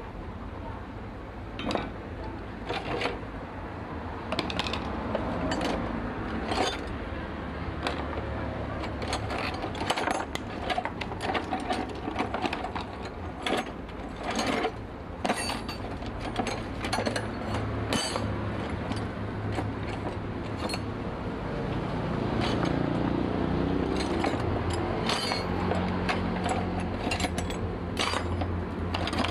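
Hand tools clicking and knocking irregularly against metal parts of an outboard motor during a stripped-thread repair, over a steady low hum that grows louder about three-quarters of the way through.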